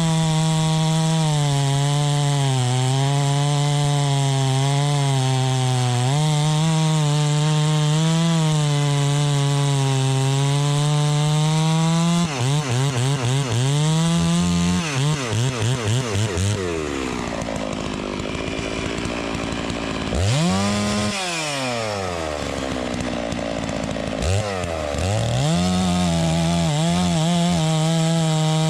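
Neotec MS 660 clone two-stroke chainsaw running at high revs, its pitch wavering, for about twelve seconds. It then stutters several times, falls away to low revs, and is revved up and back down before climbing to high revs again near the end.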